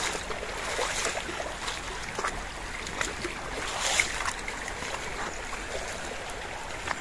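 Shallow river water running steadily, with irregular splashes and sloshes scattered through, the loudest about four seconds in.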